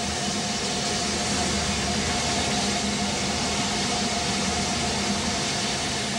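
Steady hiss of steam from a standing metre-gauge steam tank locomotive, at a constant level with a faint steady tone running through it.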